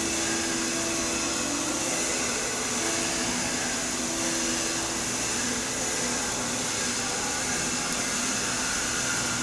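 Stick (SMAW) welding arc burning steadily on an E7018 low-hydrogen electrode: an even, continuous sizzling hiss with no breaks.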